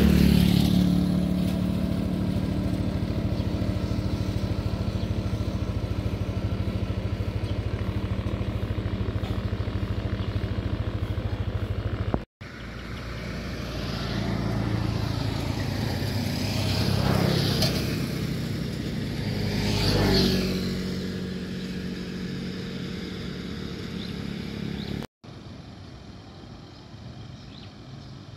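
A motorcycle engine running steadily. After a cut, two vehicles pass by a few seconds apart, each rising and then falling away. After another cut, a quieter outdoor background remains.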